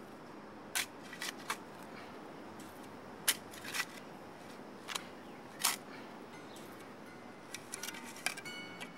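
A shovel scraping and biting into rocky soil: a handful of short, crisp scrapes at uneven intervals. Near the end, faint plucked-string music comes in.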